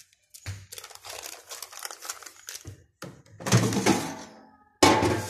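Handling noise from kitchen items being moved and set down on a counter: a dense run of clicks and rustling, with louder clattering about three seconds in and again near the end.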